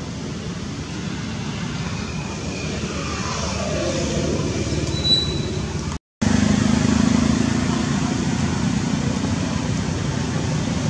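Steady road traffic noise, with a motor vehicle passing and falling in pitch around the middle. The sound cuts out for a moment about six seconds in, then resumes a little louder.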